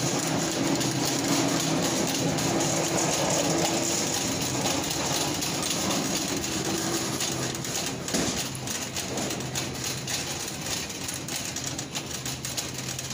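Wire shopping cart being pushed along a store floor, a steady rolling rumble from its wheels that eases a little after about eight seconds.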